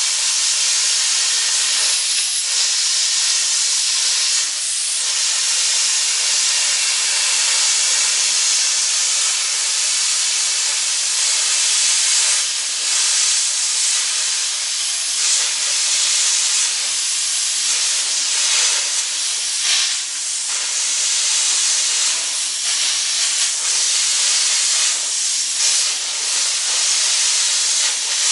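Plasma cutter torch cutting through a steel sprocket, giving a loud, steady hiss with slight flickers as the arc moves along the cut.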